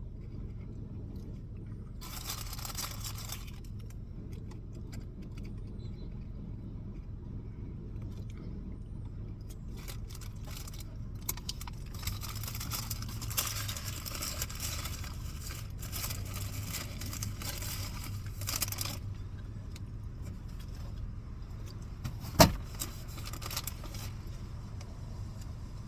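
Rustling and light jangling from handling a meal on a tray, over a steady low hum, with one sharp knock about 22 seconds in.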